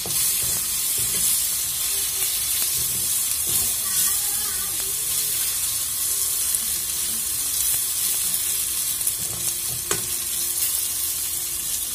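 Masala of onion, tomato and spices frying in oil in a karahi, sizzling steadily while a slotted spatula stirs it, with one sharp clink of the spatula against the pan about ten seconds in.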